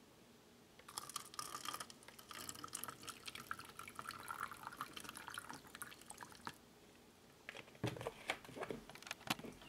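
Fecal flotation solution poured from a plastic gallon jug into a small plastic cup, a thin stream trickling and splashing for about five seconds. Near the end come a few knocks as the jug is set down on the table.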